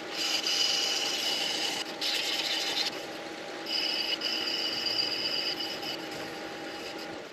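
Midi lathe running with something held against the spinning pen blank, rubbing and squealing in three stretches over the steady motor hum.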